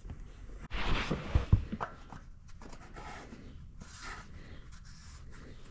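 Knocks and scraping of a gloved hand working a filter on a John Deere tractor's engine, with a quick cluster of sharp knocks about a second in, the loudest two close together, then fainter rustling and scraping.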